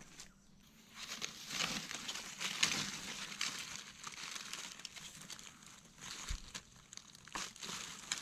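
Dry fallen leaves crackling and rustling as gloved hands and a knife work through the leaf litter around a mushroom to take it up. The crackles are irregular and start about a second in.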